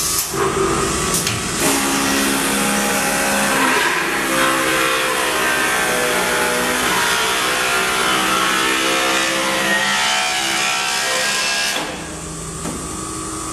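Automatic back-knife wood lathe cutting a spinning wooden stick: a loud, harsh cutting noise over a whine that drifts in pitch as the long knife shears the blank. About 12 seconds in the cut ends and the machine runs on more quietly.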